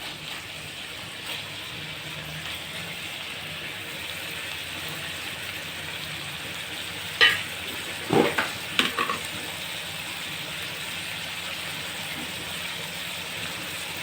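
Chicken curry sizzling as it fries in oil in a pan, a steady hiss, with a few sharp knocks of a spoon against the pan a little past halfway.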